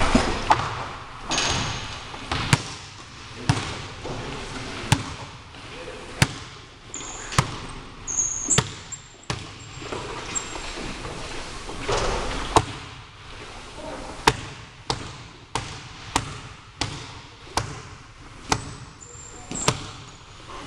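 Basketball bouncing on a hardwood gym floor: scattered single bounces at first, then a steady dribble at about one and a half bounces a second in the second half. Sneakers give brief squeaks on the floor now and then.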